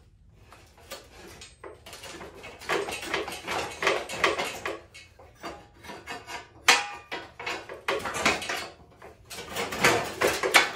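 Rusty steel parts of a John Deere 185 lawn tractor frame clanking, scraping and rattling against each other as they are worked loose by hand, with a sharp ringing metal clank about two-thirds of the way through.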